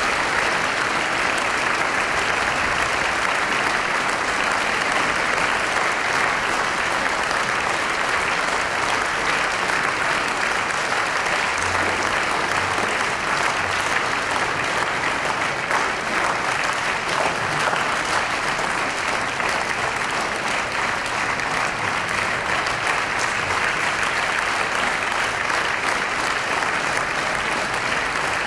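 Audience applauding steadily without a break, an ovation at the close of a performance.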